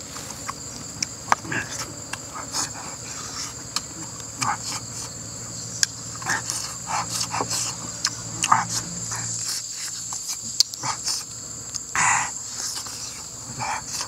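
Close-up eating sounds as a person bites and chews roasted duck off a skewer: irregular short mouth and meat noises, some louder than others. Under them runs a steady high-pitched drone of insects.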